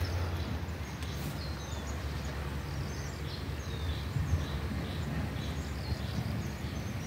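Birds calling in the background: many short, high chirps, some sliding down in pitch, scattered throughout, over a steady low rumble.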